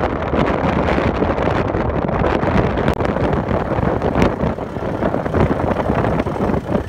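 Strong blizzard wind blasting on the microphone, with a Case IH tractor's diesel engine running underneath. The sound drops out briefly about three seconds in.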